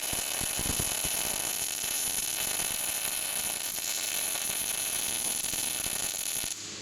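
Steady, loud hiss with an irregular low rumble beneath it, cutting off abruptly near the end.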